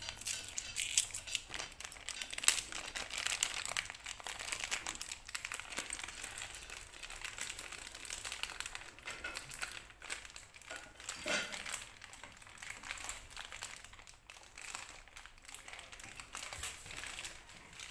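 A clear plastic bag of assembly hardware crinkling and crackling as it is opened and handled, with light clicks of the small parts. The crinkling is densest in the first few seconds and thins out after that.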